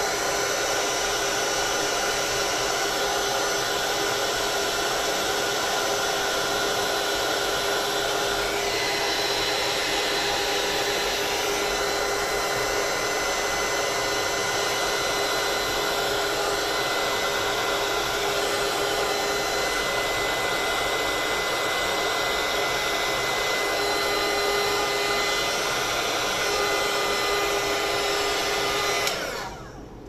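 Handheld craft heat gun running steadily, a rush of blown air with a steady whine, drying wet paint on a CD. It is switched off about a second before the end.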